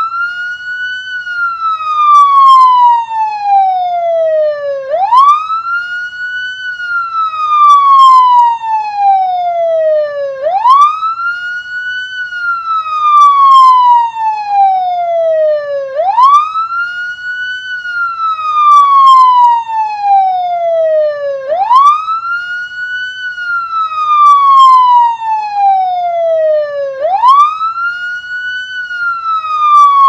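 Ambulance siren wailing: each cycle sweeps quickly up in pitch, then falls slowly for about four seconds. The cycle repeats about every five and a half seconds.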